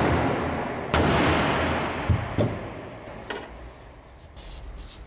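A single loud bang of a blow on the bare sheet-steel body of a VW Golf Mk2 about a second in, ringing out slowly over a couple of seconds, followed by a few light knocks.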